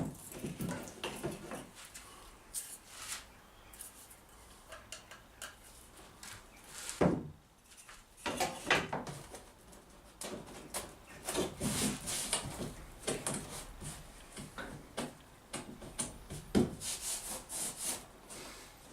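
Hand tool working the old oak bilge runner: short, irregular rubbing and scraping strokes on wood, with a sharper knock about seven seconds in and another near the end.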